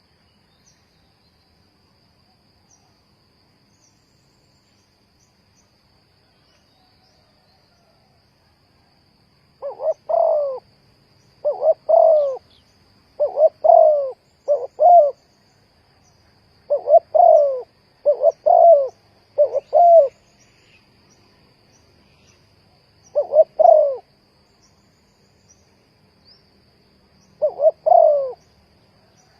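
Spotted dove cooing. After about nine seconds of quiet, it gives a run of short, low coo phrases, each a quick pair or trio of notes, with longer pauses between them near the end. A faint steady high-pitched tone runs underneath.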